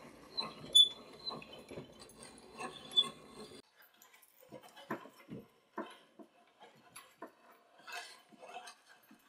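Irregular light knocks and clicks of hand woodworking tools working wood, with sharp clicks about a second in and again near three seconds.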